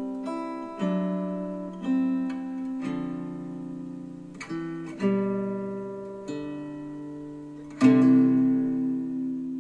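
Slow guitar music: strummed chords, each ringing out and fading before the next, the loudest one near the end. Played back through Klipsch The Fives powered speakers over Bluetooth with the Vocal EQ preset.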